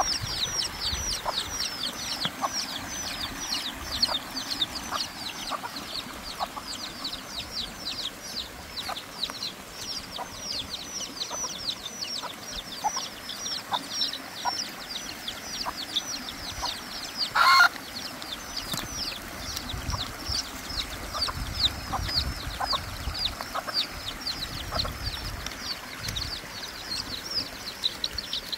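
A brood of chicks peeping continuously: short, high-pitched peeps that fall in pitch, several a second. A hen clucks softly now and then, and there is one brief louder sound about seventeen seconds in.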